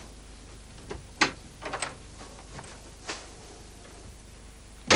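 Scattered light clicks and knocks of someone moving about, with one sharp click just after a second in and a quick cluster of small ones soon after, then a loud thump at the very end.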